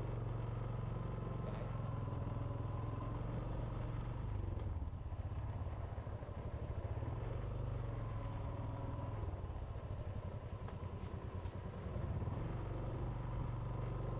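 Small motorbike engine running steadily under way. Its note eases off about a third of the way in and picks up again near the end.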